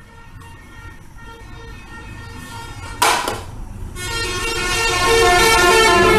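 A road vehicle's horn sounding, faint at first and swelling to a loud, held tone from about four seconds in, with a short burst of hiss about three seconds in.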